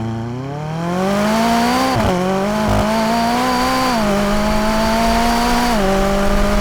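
Sports car engine accelerating hard: the revs climb over the first two seconds, then the pitch drops sharply three times, about 2, 4 and 6 seconds in, as it shifts up through the gears.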